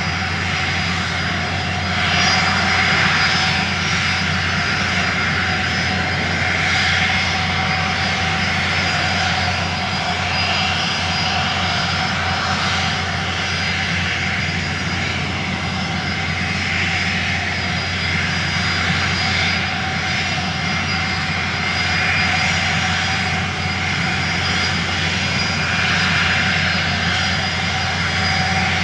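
Steady riding noise from a camera on the handlebars of a moving vehicle: wind rushing over the microphone with a constant low hum underneath, swelling and easing slightly every few seconds.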